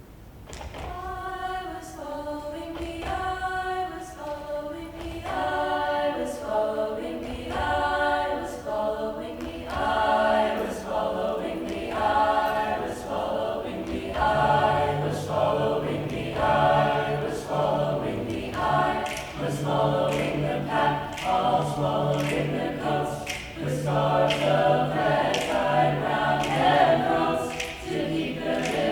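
A choir singing a cappella in harmony, the voices coming in about a second in and a lower part joining about halfway, over a steady beat of light sharp taps.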